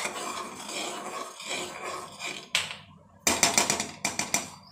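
Metal ladle stirring boiling milk in an aluminium pot, scraping against the metal. About three seconds in comes a quick run of sharp clacks lasting about a second.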